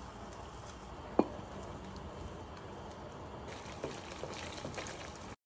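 Pasta water poured from a cup into a stainless-steel pan of spaghetti, then metal tongs tossing the pasta in the pan. A single sharp clink comes about a second in, and lighter clicks of the tongs against the pan come near the end.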